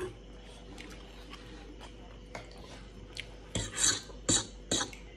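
Eating sounds at the table: a spoon clicking and scraping in a stainless steel bowl, with three louder rasping scrapes near the end.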